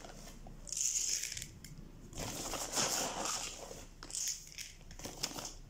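Zeolite granules being added by hand from a plastic sack into a plastic mixing bowl of potting mix, clattering in several separate bursts, with the plastic bag crinkling.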